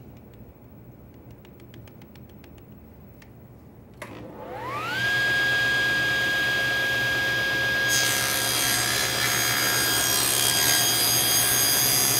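A table saw with a full-kerf blade is switched on about four seconds in; its motor whines up to speed in about a second and then runs at a steady pitch. About halfway through, the blade starts ripping a thin 1/16-inch strip off a board, and a loud cutting hiss rides over the motor. A few faint clicks come before the saw starts.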